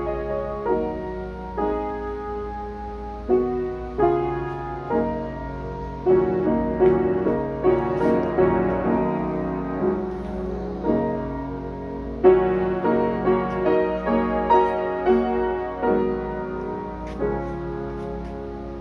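Mason & Hamlin model BB grand piano, unrestored, being played: a piece of struck chords and melody notes that ring and fade, with a loud chord about twelve seconds in.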